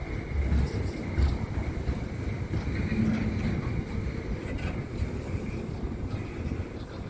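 Double-stack container freight train rolling past, a steady low rumble of wheels on rail, with a few low thumps in the first second or so.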